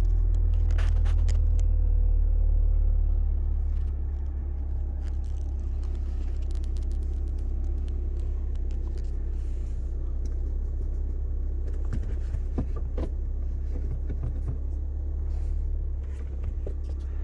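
Car engine idling: a steady low rumble that drops a little in level about three and a half seconds in, with a few light clicks and knocks near the end.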